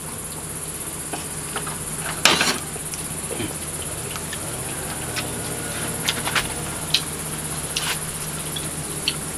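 Steady high-pitched chorus of insects, with a few scattered light clicks and knocks, the loudest about two seconds in.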